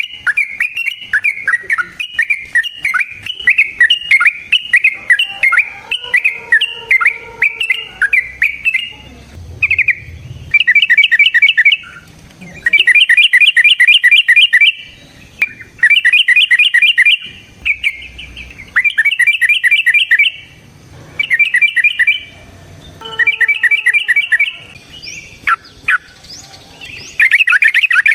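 Yellow-vented bulbul (trucukan) singing loudly. It starts with a run of quick chirping notes, then from about ten seconds in sings a series of rapid chattering bursts, each a second or two long, with short pauses between them.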